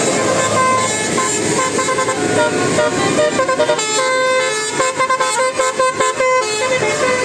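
Telolet bus horn: a bus's set of musical multi-tone horns playing a tune of several notes, the notes coming short and quick in the second half, over steady noise.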